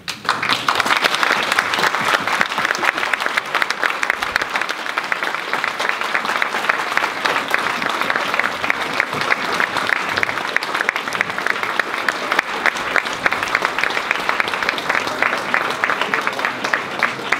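Audience applauding; the clapping of many hands breaks out all at once and stays steady.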